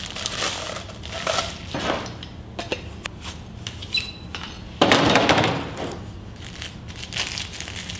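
Plastic wrapping crinkling as a paint roller cover is unwrapped and fitted onto its frame, with light knocks and clatter of the roller and brush against a plastic paint tray. There is a louder rustling burst about five seconds in.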